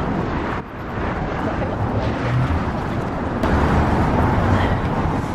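Steady city street traffic noise, a continuous rumble and hiss of passing vehicles, with a brief dip about half a second in.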